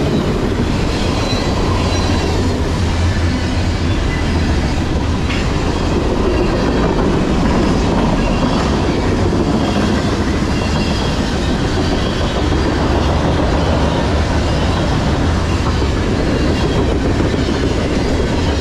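Freight cars of a long CSX manifest train rolling past at close range: a steady, loud noise of steel wheels running on the rails.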